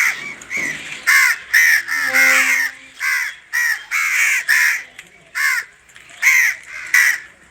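A bird calling harshly over and over: about a dozen short, rasping calls in quick succession, with brief pauses between them.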